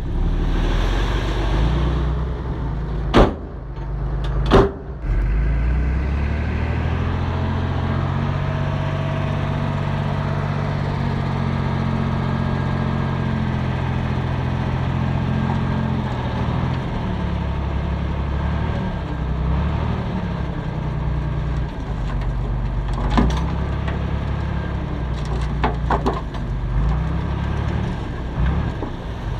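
Diesel engines of dump trucks and a bulldozer running at a fill site, a steady heavy drone with a firmer engine tone for several seconds in the middle. Two sharp bangs come a few seconds in, and a few lighter knocks come later.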